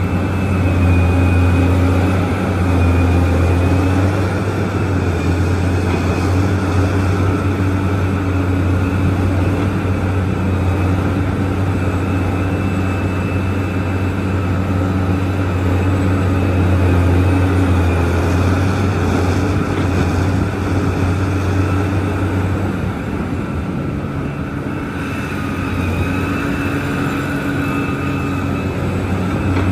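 Large Liebherr mining excavator's diesel engine running steadily with a deep drone and a high whine. The engine eases off briefly about two-thirds of the way through, then picks up again.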